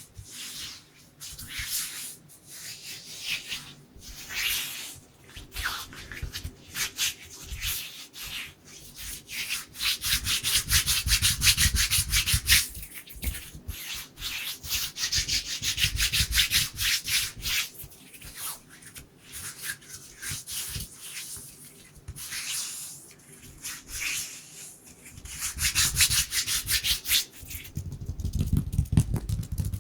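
Dry bare hands rubbing and brushing against each other close to the microphone, in quick rustling strokes. About a third of the way in the strokes run fast and even, and near the end the rubbing turns fuller and deeper.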